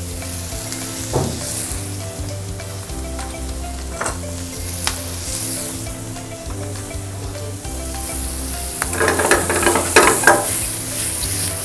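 Vegetables sizzling in butter in a stainless steel frying pan on a gas burner, with a few light scrapes and clicks of the pan. About nine seconds in the pan is tossed and the sizzling gets louder and busier for a second or so. Soft background music with steady low notes plays underneath.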